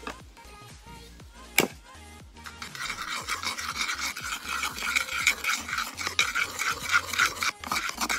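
Seasoning being rubbed by hand into raw lobster: a sharp click about a second and a half in, then a run of quick, rhythmic rasping strokes.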